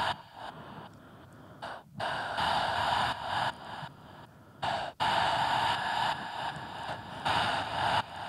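Amplified breathing: long, breathy exhalations blown into a microphone, two of them, each lasting a couple of seconds, the second starting abruptly about five seconds in.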